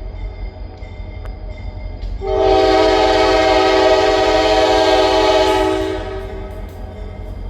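Freight locomotive's air horn sounding one long blast, starting about two seconds in and cutting off about six seconds in, over the steady low rumble of the train.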